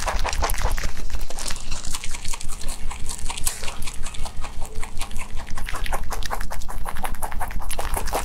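A rabbit chewing fresh grass blades close to the microphone: rapid, even crunching, several bites a second.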